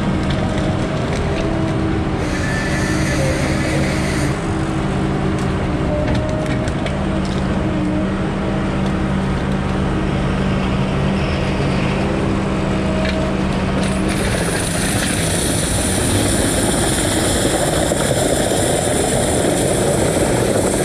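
Diesel engine of a knuckleboom log loader running steadily at working speed while its hydraulics work the boom and grapple. About 14 seconds in the engine comes up louder, with a rushing noise, as the loader takes the load.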